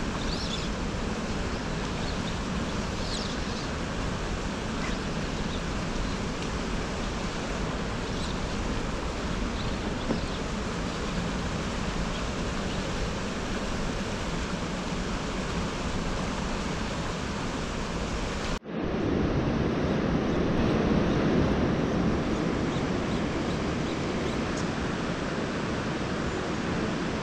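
Steady rush of a fast-flowing river current over rock. About two-thirds of the way through it breaks off for an instant and comes back fuller and lower.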